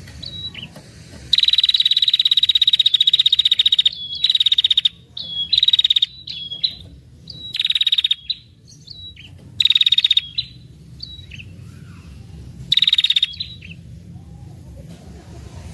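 Female ashy tailorbird (prenjak kepala merah) giving rapid rattling trills, the long 'ngetir' call used to lure males: one long trill of about two and a half seconds, then five shorter trills with short chip notes between them.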